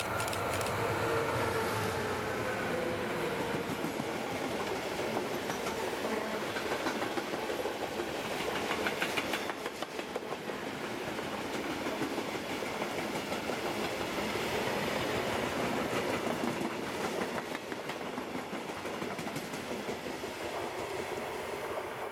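Electric-hauled freight train passing close by: the two locomotives go by at first, then a long rake of open box wagons rumbling and clattering steadily over the rails.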